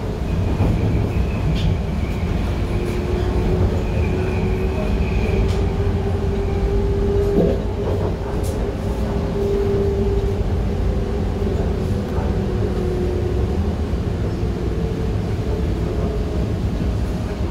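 Bombardier T1 subway train running: a steady rumble of wheels on the track with a faint motor whine that rises slightly in pitch and fades out after the middle, plus a few light clicks.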